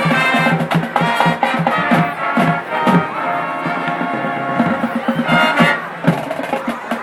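High school marching band playing a jazz arrangement: brass section playing full chords over regular drum hits.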